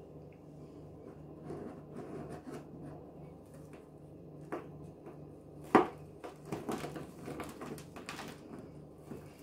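Gym chalk blocks crushed and crumbled by hand in laundry detergent powder: soft irregular crunches and scrapes, with one sharp crack a little before six seconds in and a quick run of crunches after it.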